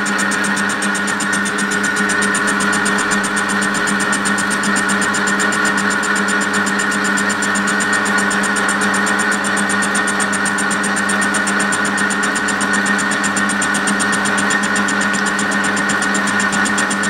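Metal lathe running steadily with a hum and a higher whine as the turning tool takes a light skimming cut on a spinning home-cast aluminium block. The casting is out of round, so the tool is making an interrupted cut until the surface trues up.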